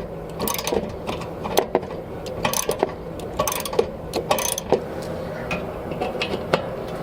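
A hand tool backing small screws out of the access cover of a 23-year-old Atwood RV water heater, making irregular clicks throughout.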